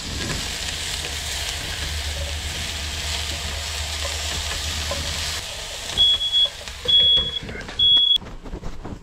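Stir fry sizzling in a hot pan, cutting off about five seconds in. Then a smoke alarm sounds three short, high beeps, set off by the cooking smoke, with a few knocks around them.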